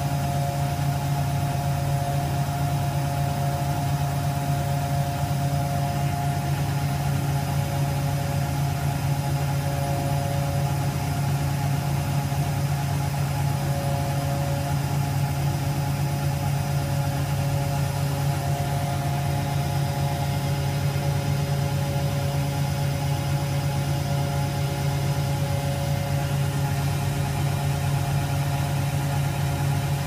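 Front-loading washing machine spinning an unbalanced load: the motor and drum run at a steady speed, giving a steady low hum with a whine above it.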